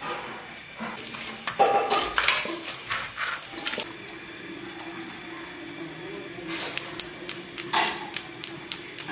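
Metal cooking utensils clinking and knocking against pots, in two clusters of sharp taps, with a faint steady hum underneath.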